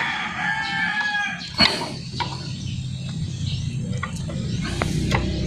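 A rooster crowing, its long call ending about a second in, followed by a few sharp clicks and knocks from hands working on a motorcycle's fuel hoses, over a steady low hum.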